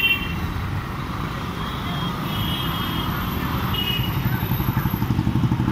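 City road traffic heard from a moving vehicle: a small engine runs close by with a steady, fast pulse that gets stronger near the end, and short horn toots sound about two and four seconds in.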